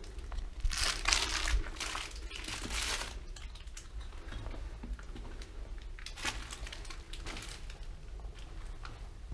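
Irregular crunching and rustling of a person moving in a confined tunnel: footsteps and clothing scraping. Loudest in a cluster about a second in, with fainter bursts around six and seven seconds in.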